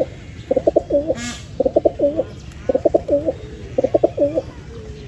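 Pigeon cooing: a short phrase of a few quick pulses ending in a bending note, repeated about once a second. A brief higher-pitched call cuts in about a second in.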